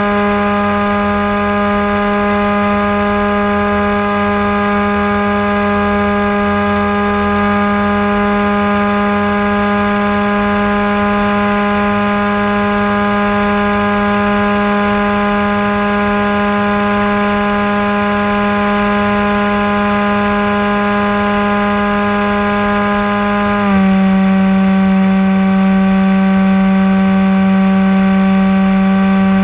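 Motor and propeller of a Maxi-Swift RC flying wing, heard from its onboard camera, running at a steady pitched drone. About three-quarters of the way through, the pitch drops slightly and the sound gets a little louder.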